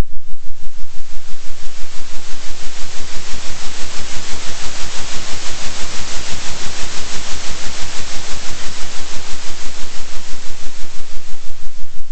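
Generated noise track: a full hiss over a steady low hum, pulsing in loudness about three times a second (a 3 Hz oscillation). The hiss grows brighter toward the middle, then duller again.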